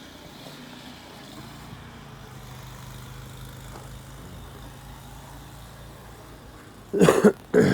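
A motor vehicle engine running steadily in the background, a low even hum. Near the end come two short, loud bursts of sound.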